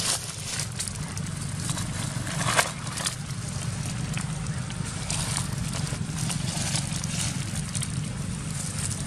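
Dry fallen leaves crackling and crunching under a long-tailed macaque's feet as it walks over leaf litter, with one sharper snap about two and a half seconds in. A steady low hum runs underneath throughout.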